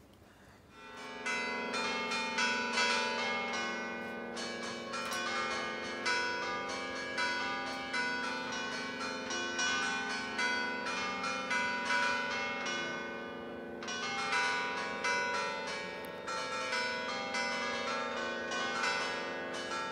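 Church bells pealing, starting about a second in: several bells struck in quick succession, their tones hanging on beneath the strikes, with a short let-up about two-thirds of the way through.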